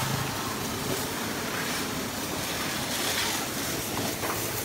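Water spraying hard from a hose onto a motor scooter being washed: a steady hiss of spray.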